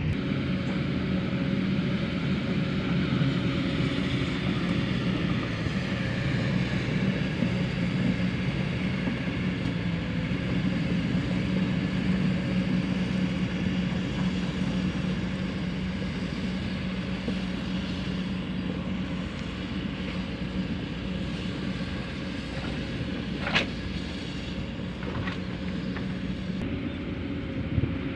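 Diesel engine of heavy construction machinery running steadily with a deep, even hum that eases slightly partway through. Two short sharp knocks come near the end.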